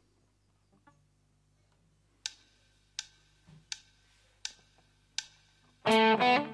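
Five sharp, evenly spaced clicks, about one every 0.7 seconds, counting in; then near the end an electric guitar comes in loud with a quick run of clear notes.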